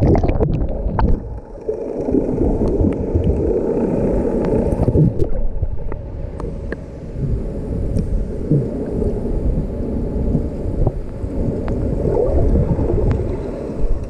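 Muffled underwater rumble and gurgling of sea water around a submerged action camera, with scattered small clicks and ticks. It starts with a sudden loud splash as the camera goes under.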